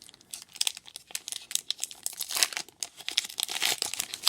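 Crinkly wrapper of a Pokémon trading card pack being handled and torn open, an irregular run of crackles and rips.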